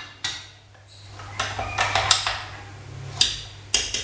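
Kitchen utensils clinking and knocking against dishes and a glass container: a run of sharp knocks, loudest near the start and again after about three seconds, over a steady low hum.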